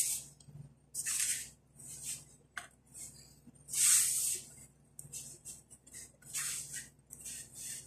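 Hands kneading soft yeast dough in a metal bowl: irregular rustling, squishing strokes, about one or two a second, the loudest about four seconds in.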